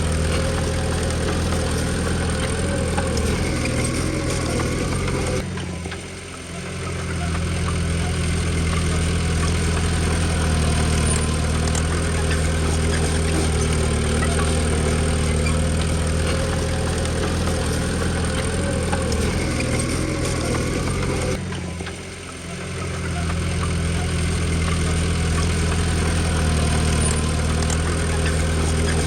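Komatsu D20P bulldozer's diesel engine running steadily, briefly easing off twice, about a fifth of the way in and again about three-quarters through.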